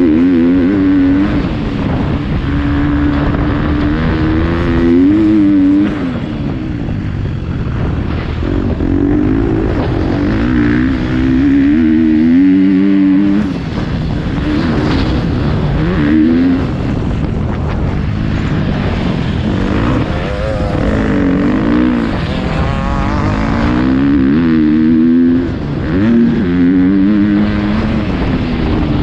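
Motocross bike engine heard close up from the rider's camera, revving up and dropping back again and again as the throttle is opened and shut through the corners and straights, with brief dips where the rider shuts off.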